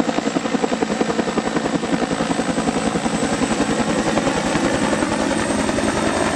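Two-bladed helicopter flying past, its main rotor giving a fast, even blade chop, with a thin high whine running steadily over it.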